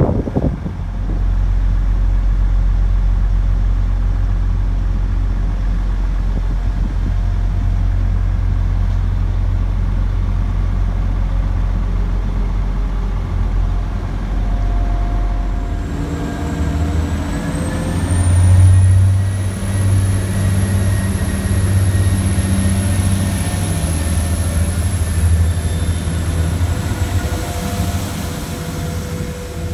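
Diesel multiple-unit trains running. First a steady low engine drone from a two-car unit moving through the station. Then, about halfway through, a Class 175's engine note and a high whine rise in pitch as it pulls away, loudest a few seconds after the change.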